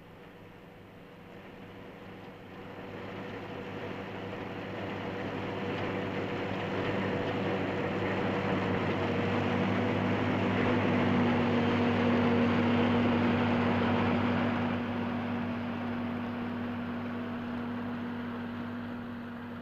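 Engine of a passing vehicle or machine running with a steady hum, growing louder over about ten seconds and then fading away.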